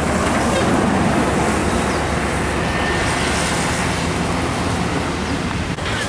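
Large tour coach driving past close by: its diesel engine and tyres make a steady road noise that is loudest in the first second or two.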